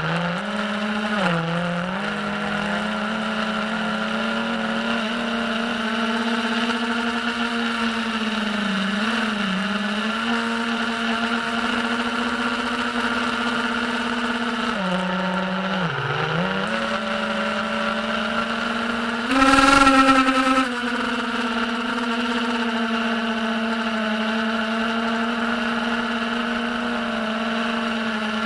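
Diatone Tyrant S FPV quadcopter's electric motors whining steadily in flight. The pitch drops briefly three times as the throttle is eased. A louder, higher-pitched surge about two-thirds of the way through is a short burst of throttle.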